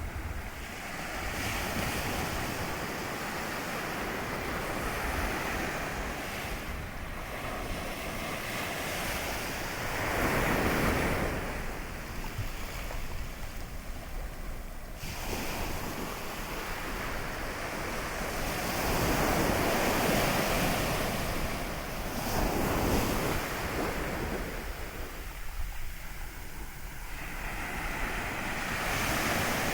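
Sea surf on a calm morning: small waves breaking and washing up the shore, swelling roughly every nine or ten seconds, with some wind buffeting the microphone.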